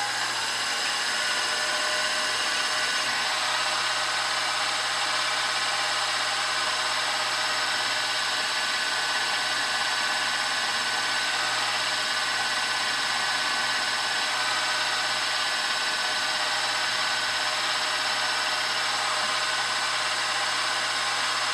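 Milling machine spindle running steadily with a steady whine of several fixed tones as a number 38 drill bit drills a small hole through bronze.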